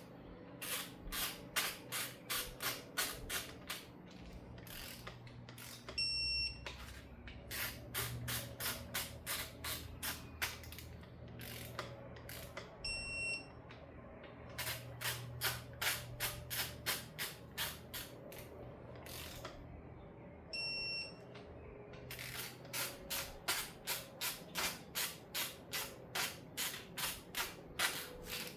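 Ratchet of a torque wrench clicking in quick runs of strokes, about three or four a second, as the 10 mm side bolts of an LS block's main caps are run down to 18 ft-lb. A short high electronic beep sounds three times between the runs.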